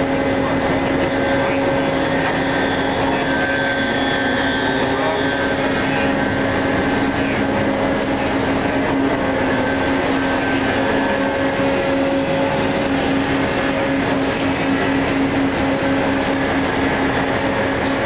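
Electro-hydraulic E-Crane running as it swings and lowers its clamshell grab: a steady, loud machinery drone with a constant low hum.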